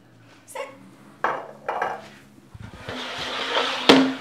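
Glassware and a bottle knocking down on a hard counter a few times, then a wooden chair scraping across the floor as it is pulled out, ending in a sharp knock near the end.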